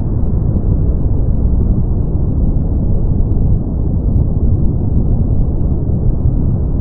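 Brown noise: a steady, deep rushing noise, heaviest in the bass and with no high hiss, unchanging throughout.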